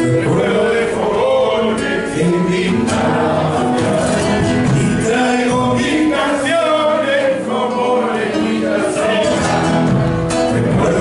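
Recorded folk song playing, with several voices singing together over instrumental accompaniment.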